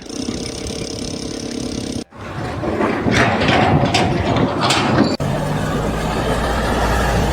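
Engine and machinery sounds in three short segments cut together: a steady mechanical hum with several even tones, then a noisier stretch with rising sweeps, then a steady low engine drone.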